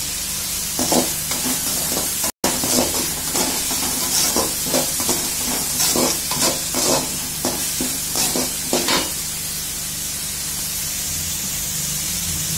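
Chopped onions with curry leaves and dried red chillies sizzling steadily in oil in a metal kadai, while a perforated metal spatula stirs and scrapes against the pan in quick repeated strokes. The stirring stops about nine seconds in, leaving only the sizzle.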